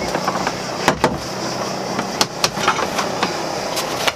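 Knocks and bumps of cockpit seat cushions and a locker lid being handled on a boat, a few sharp knocks about a second in and a cluster more after two seconds, over a steady low hum.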